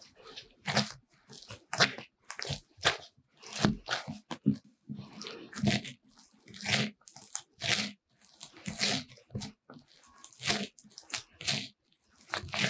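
Bread dough being kneaded by hand on a work mat, with butter being worked into it: a run of squishing, pressing and slapping strokes at about two a second.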